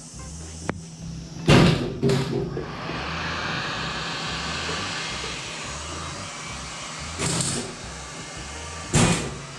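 Hot-air heat gun blowing with a steady fan hiss as it heats old rubbery underseal on a car's inner fender. A click comes just under a second in, and four short loud scrapes or knocks come as the chisel works the softened underseal.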